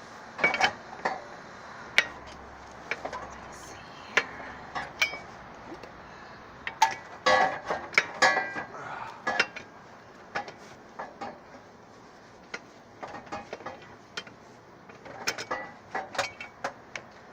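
A lug wrench turning a car wheel's lug nuts loose, with irregular metal clicks and clinks, busiest about halfway through.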